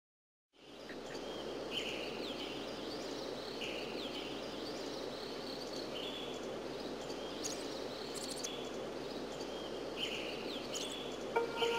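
Outdoor nature ambience: a steady background hiss with short bird chirps every couple of seconds, fading in about half a second in. Music enters right at the end.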